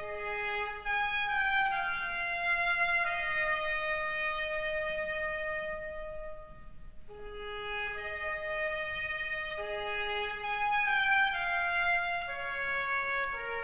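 Instrumental intro music: a slow melody of long held notes, with the phrase starting over about seven seconds in.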